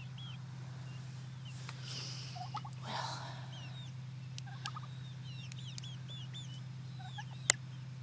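Young birds under a nesting turkey hen peeping in many short, falling chirps, with a few lower calls and a rustle of feathers about two to three seconds in. A sharp click near the end is the loudest sound, over a steady low hum.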